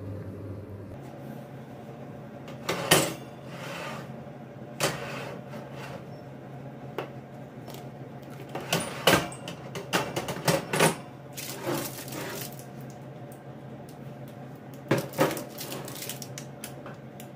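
Household objects being handled and set down: a series of separate clicks and knocks, the loudest about three seconds in and around nine seconds, over a steady low hum.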